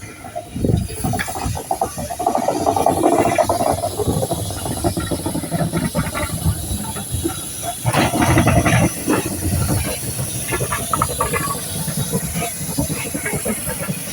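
Steam locomotive hissing steam, with irregular knocks and rumbles through the hiss.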